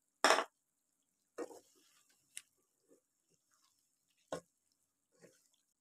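A sharp knock just after the start, then a few faint scattered knocks and scrapes of a wooden spatula stirring chicken in a wok.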